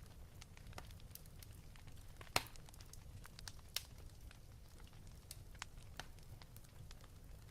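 Wood fire crackling: irregular sharp pops and snaps over a soft low rumble, with one louder pop about two and a half seconds in.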